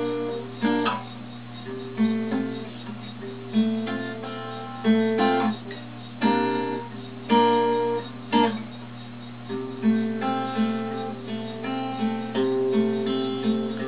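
Acoustic guitar strumming the chords of a song's introduction, one stroke about every second, with a faint steady hum underneath.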